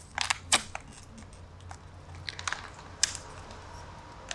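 A small kraft-paper lure packet crinkling and crackling as fingers work it open, in a few short sharp bursts: two near the start, more around the middle, and the loudest about three seconds in.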